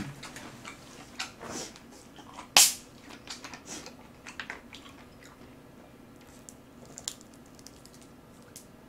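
Quiet chewing with small mouth and tableware clicks. About two and a half seconds in comes one short, loud hiss as the cap of a plastic soda bottle is twisted open.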